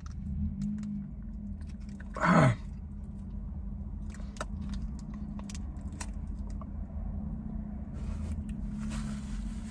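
Close-up mouth sounds of a man eating a hot chicken sandwich: chewing with small wet clicks, and one short vocal sound falling in pitch about two seconds in, over a steady low hum.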